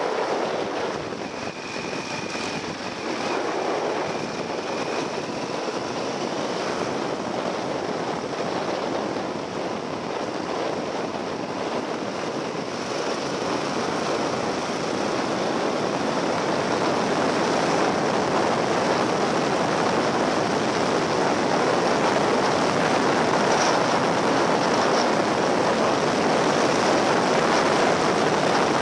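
Riding on a Yamaha XT1200Z Super Ténéré, its 1200 cc parallel-twin engine running under a steady rush of wind and road noise on a bike-mounted microphone. The rush gets louder through the second half as the bike speeds up on the open road.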